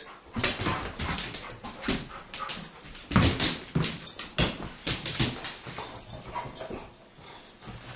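An Airedale terrier making short whiny sounds amid a run of quick clicks and scuffles as it moves about and plays.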